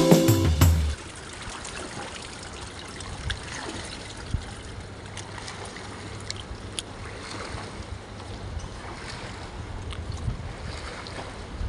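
Background music that stops about a second in, then a steady wash of swimming-pool water trickling and sloshing, with a few faint splashes.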